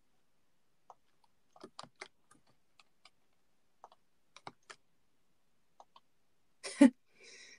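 Computer keyboard keys clicking faintly and sparsely, a few keystrokes at a time. Near the end comes one louder short sound, then a brief breathy noise.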